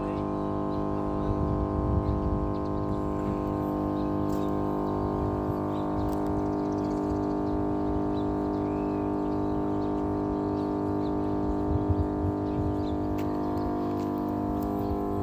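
Step voltage regulator in a substation humming: a steady electrical drone made of many even tones that holds unchanged throughout.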